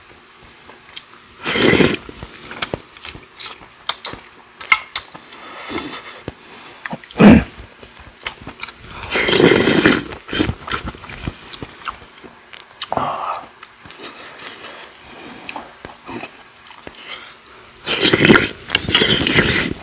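Mouth sounds of eating soybean paste stew: several loud slurps of broth from a spoon, each about a second long, with chewing and small clicks of spoon and chopsticks between them.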